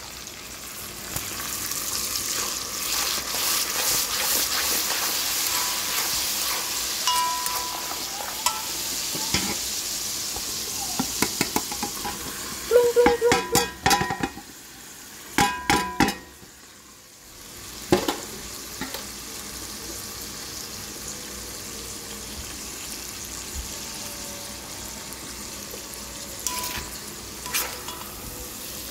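Sauce sizzling in a wok while a metal spoon stirs and scrapes in the pan. A cluster of sharp clinks of spoon on wok comes about 13 to 16 seconds in, then a short dip before a quieter sizzle carries on.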